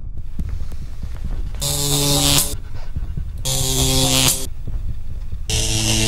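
Three electric buzzes, each about a second long and about two seconds apart, a steady pitched buzz with a hiss over it, from a makeshift wired-up apparatus being switched on. Under them runs a low steady hum.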